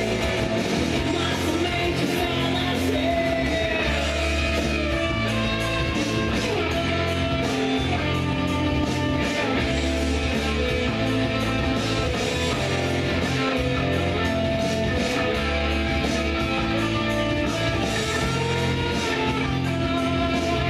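Rock song playing, with guitar, a steady beat and a singing voice.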